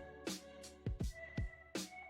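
Background electronic music with a steady beat of deep kick drums and sharp snare hits over sustained chords.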